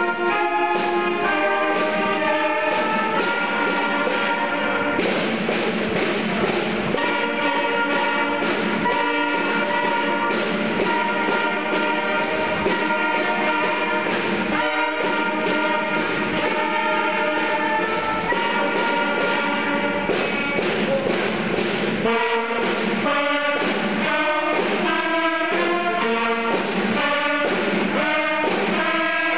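A youth concert band playing, with flute, clarinet and trombone among the instruments. The notes turn short and detached in the last several seconds.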